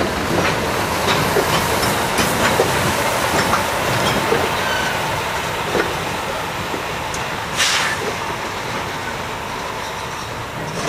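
Freight tank cars rolling past at close range: a steady rumble of steel wheels on rail with scattered clicks and knocks, and a short hiss about three quarters of the way through.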